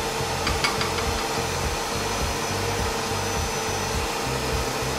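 Kenwood Cooking Chef kitchen robot running at maximum speed, mixing sabayon: a steady motor hum with a constant whine. A few faint clicks about half a second in.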